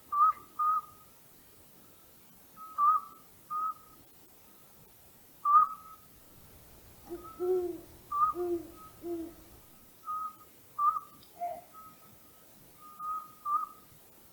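Owl calls at night: short, clear whistled notes at one steady pitch, repeated irregularly and often in pairs. A deeper series of three hoots comes in about seven to nine seconds in.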